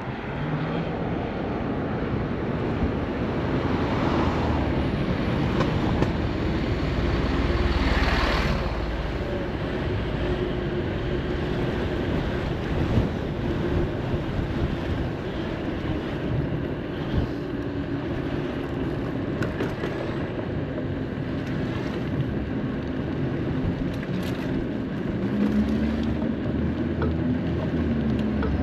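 Wind rushing over the microphone and road noise from a NIU UQi+ Sport electric moped under way, with other traffic going by. A louder swell about eight seconds in.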